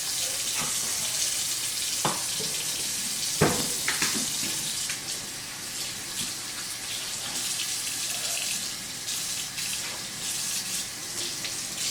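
Kitchen faucet running steadily into a sink while a flat spatula is rinsed under it, with a few sharp knocks of utensils against the sink about two seconds in and again around three and a half to four seconds.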